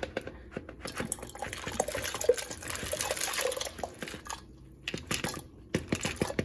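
Water pouring from a plastic container into a clay pot that already holds water, splashing and trickling, as washed beans are tipped in. A steady pour runs for about three seconds, then comes in a few short spurts near the end.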